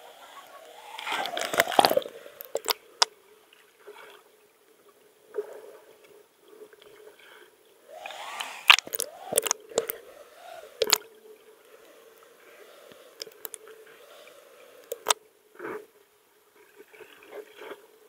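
Water sloshing and splashing in a natural swimming pool, with a handful of sharp splashes standing out over a steady wash of water noise. The loudest splash comes about nine seconds in.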